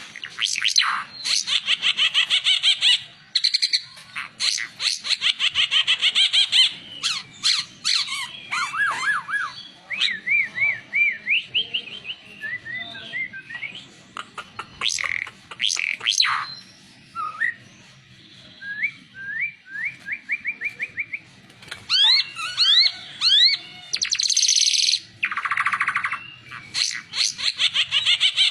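An 'ara mata merah' songbird singing a long, varied, high-pitched song: fast chattering trills alternating with quick runs of repeated rising whistled notes, broken by short pauses.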